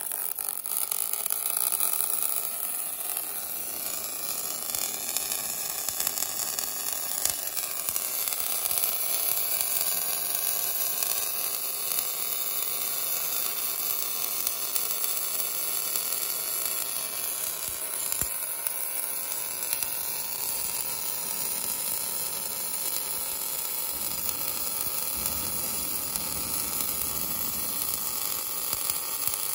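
Welding arc of an automatic longitudinal seam welder burning steadily along a sheet-metal seam: a continuous sizzling hiss, with one sharp tick about two-thirds of the way through.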